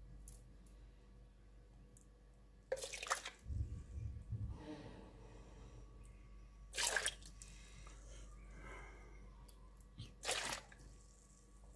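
A metal ladle dipping into the whey in a steel pot of fresh yogurt cheese and lifting it out: three short splashes a few seconds apart, with liquid trickling and dripping between them.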